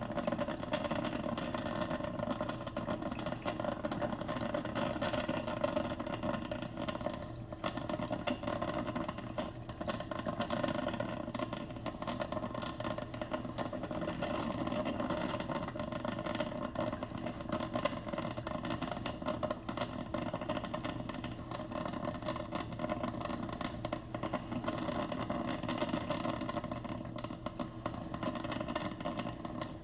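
Mr. Coffee 12-cup drip coffee maker brewing, a steady noise made of dense fine crackles that keeps an even level throughout.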